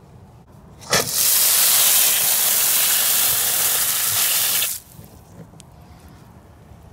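Pressurized water spraying with a loud hiss from the open supply pipe stub in a wall, where an outdoor hose bib has been removed, with a rag held over the opening. The spray starts suddenly about a second in and cuts off abruptly nearly four seconds later.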